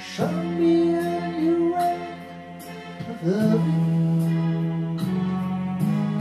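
Slow song with a singer holding long notes, sliding up into a new one about every three seconds, over instrumental backing.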